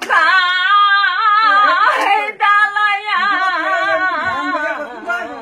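An elderly woman singing unaccompanied in a wavering voice: two long, drawn-out phrases with a brief break about two seconds in.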